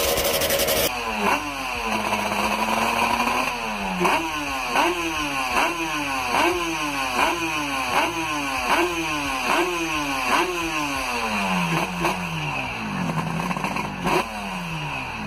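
Yamaha TZ750 inline-four two-stroke racing engine being blipped by hand. After a brief held rev, the revs are snapped up and let fall back over and over, a little more than once a second.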